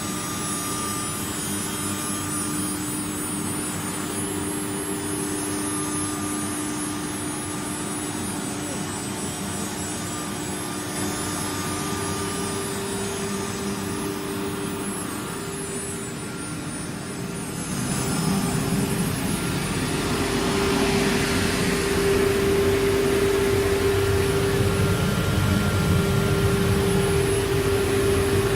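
CNC woodworking router running: a steady spindle whine over machine noise, growing louder and fuller about eighteen seconds in.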